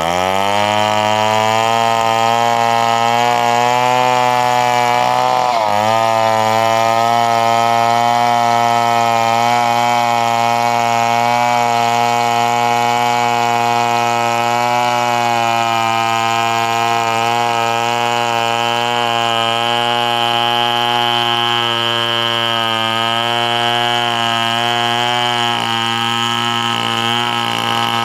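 Two-stroke chainsaw held at full throttle while cutting wood, its engine note steady throughout. The pitch dips briefly about six seconds in, as if the chain bites harder, then recovers.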